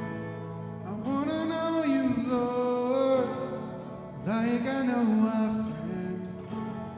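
Worship song: a voice singing two long, held phrases, the first about a second in and the second about four seconds in, over instrumental accompaniment that includes guitar.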